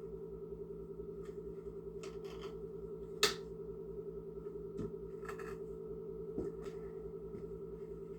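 A steady low hum with scattered light clicks and taps, and one sharper click about three seconds in.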